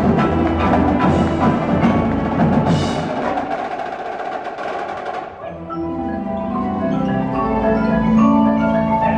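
Marching percussion ensemble performing: dense drumming with mallet percussion for about five seconds, then marimbas and other keyboard percussion playing held melodic notes.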